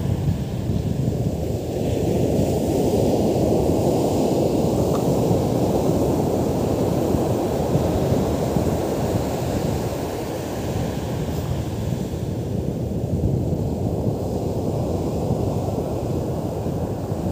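Strong wind buffeting the microphone over the steady rush of breaking surf.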